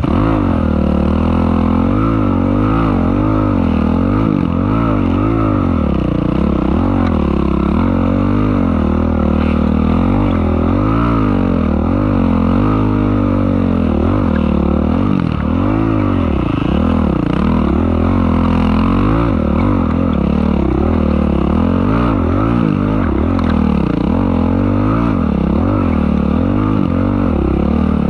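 Dirt bike engine running while being ridden, its revs rising and falling over and over, about once every second or two.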